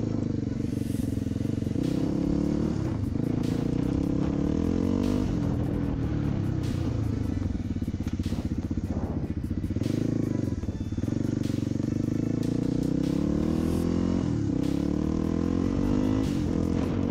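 Suzuki DR350's single-cylinder four-stroke engine, fitted with a SuperTrapp exhaust, running under throttle. Its pitch climbs and drops again and again as the throttle is opened and closed.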